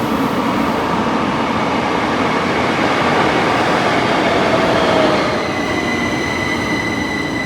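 Metro train running: a loud steady rushing rumble from inside the moving car, with a steady high whine coming in a little past halfway.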